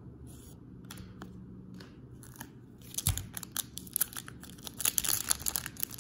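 A baseball card pack's foil wrapper being torn open and crinkled: fairly quiet handling at first, then a quick, dense run of crackles and rips from about halfway through.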